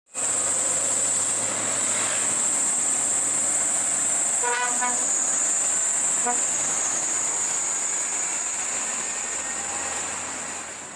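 Scania P380 heavy truck hauling a loaded lowbed trailer, its engine running as it drives past. A vehicle horn toots briefly twice, about four and a half and six seconds in, over a steady high-pitched whine.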